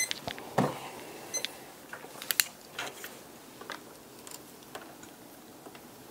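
Irregular small clicks and taps of multimeter test probes being placed on a circuit board as it is handled. They come thicker in the first few seconds.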